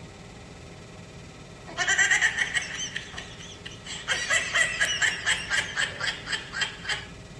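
An 'annoying sound' clip played from a phone speaker: a loud high-pitched cry starting about two seconds in, then a run of high, pulsing cries about three a second that stops near the end.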